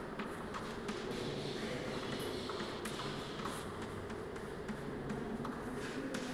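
Chalk writing on a chalkboard: a string of short, irregular taps as the chalk strikes the board, with faint scraping between strokes.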